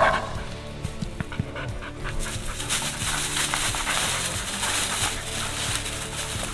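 Background music over a hound panting.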